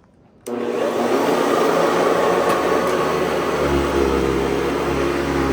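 Hoover Convertible U4387 upright vacuum cleaner switched on about half a second in, its 5-amp motor starting abruptly and then running steadily. A deeper hum joins about three and a half seconds in.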